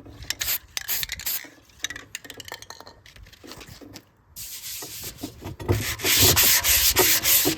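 Handling clicks and light scrapes, then from about halfway in a hand sanding block rubbing back and forth over cured body filler on a steel motorcycle gas tank, in steady even strokes that grow louder near the end.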